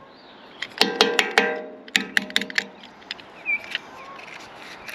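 Background music: quick runs of plucked guitar notes, in two clusters about a second apart, fading away in the second half.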